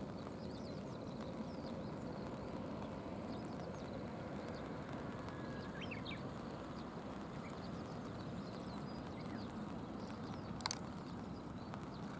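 Steady patter of light rain falling on a river, with faint scattered bird chirps over it and a single sharp click about ten seconds in.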